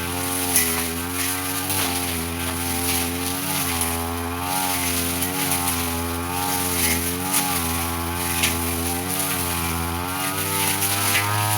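Brush cutter engine running steadily at moderate speed while cutting undergrowth, its pitch wavering up and down as the blade meets the growth, with a few sharp ticks.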